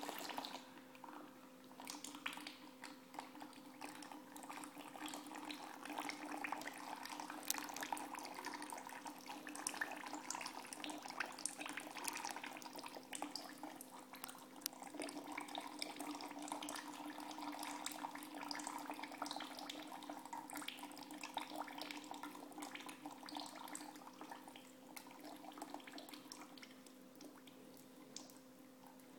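Engine oil pouring and dripping out of a BMW 120 diesel's intercooler, oil that collected there after the turbocharger failed. A steady run of liquid with many small drips, easing off near the end, over a faint steady hum.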